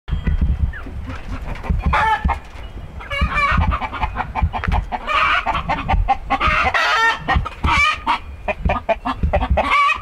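Chickens cackling and squawking loudly, many short wavering calls overlapping one another, over a low rumbling with scattered thumps.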